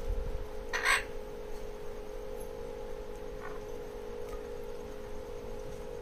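A green parakeet squawks once, loudly, about a second in, then gives a fainter call around three and a half seconds in, over a steady low hum.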